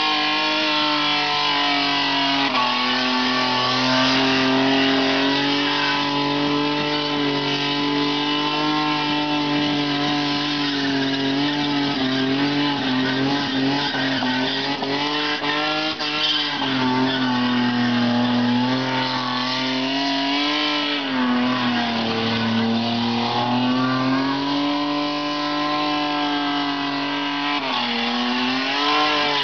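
Toyota Corona doing a burnout: the engine is held at high revs with the tyres spinning and squealing. The engine note sags and climbs back a few times in the second half.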